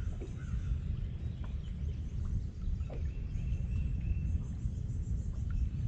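Outdoor ambience over the water: a steady low rumble with faint bird calls and a few short chirps over it.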